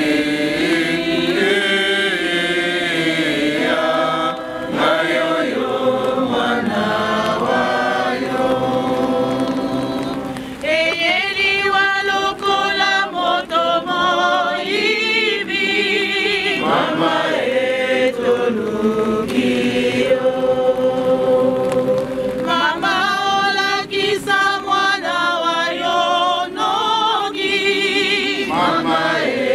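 A congregation singing a hymn together, many voices in long, wavering phrases with no instruments heard.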